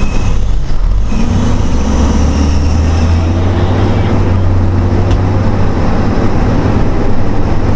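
Fire engine's engine running under load inside the cab, rising in pitch about a second in as the truck accelerates, then holding steady, with road noise.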